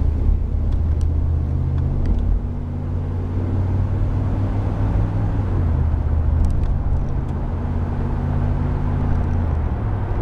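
1990 Chevrolet Caprice Classic's 5.0-litre V8 running steadily under way, heard from inside the cabin over tyre and road noise, with a few faint clicks.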